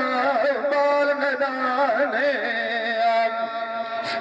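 Saraiki dhola folk singing: a voice sings a wavering, ornamented melody over a steady held drone. A sharp click comes near the end.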